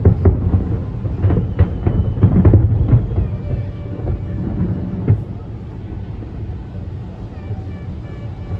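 Fireworks going off: a quick run of sharp bangs and crackles over a deep rumble of booms for about five seconds, then dropping to a quieter rumble.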